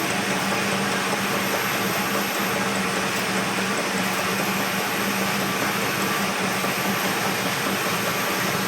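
Vertical milling machine running steadily, its motor giving an even hum under a constant wash of mechanical noise.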